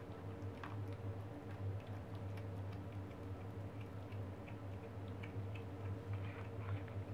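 Kitten chewing on a dead newborn rabbit: irregular small clicks, a few every second, over a steady low hum.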